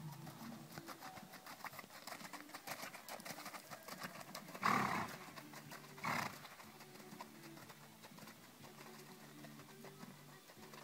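A horse's hooves striking the sand footing of a dressage arena, with two loud, short, noisy bursts about a second and a half apart near the middle.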